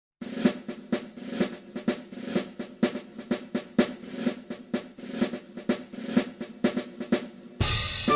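Snare drum playing a steady, evenly repeated beat, several strikes a second. Near the end, louder keyboard music cuts in over it.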